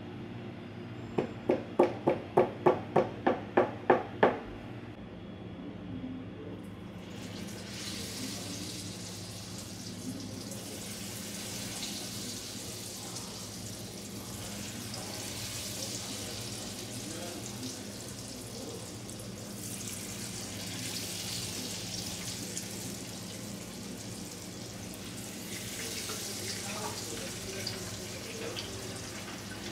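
Hot deep-frying oil sizzling in a steady hiss that swells and eases, over a steady low hum. Near the start comes a quick run of about ten sharp knocks.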